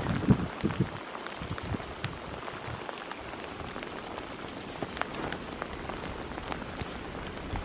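Steady patter of falling wet snow, with many scattered light ticks and a few soft low thumps in the first second.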